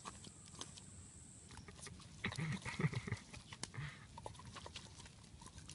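Knife filleting a tilapia: small clicks and scraping as the blade works along the skin and flesh, with a low grunting vocal sound about two to three seconds in.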